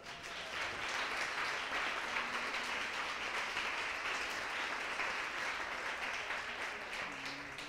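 Audience applauding: a steady patter of many hands clapping that builds up in the first moment and dies away near the end.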